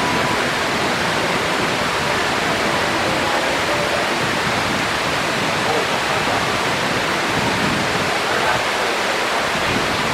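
Steady rush of water cascading down the waterfalls of the Mirage volcano attraction into its lagoon, an even hiss with no breaks.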